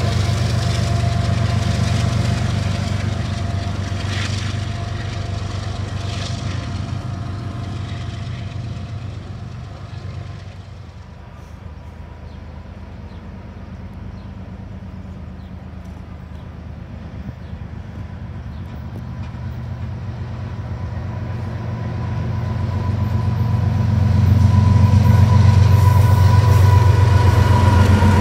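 Freight train on the rails: a coal train's diesel locomotives and hopper cars rumble past and fade away. Then a second diesel-hauled coal train draws near, its engines and wheels growing steadily louder until the locomotive passes close by near the end.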